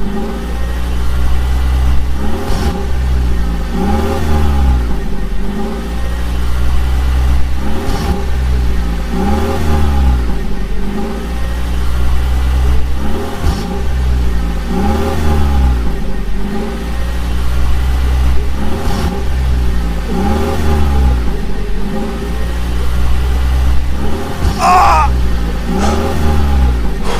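Vehicle engine running and revving in a cycle that repeats about every three seconds, with a heavy low hum throughout. A short high squeal sounds near the end.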